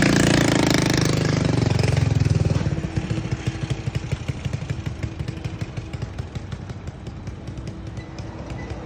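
A combustion engine running close by. It is loud for about the first two and a half seconds, then drops to a quieter, steady pulsing run with a faint steady hum.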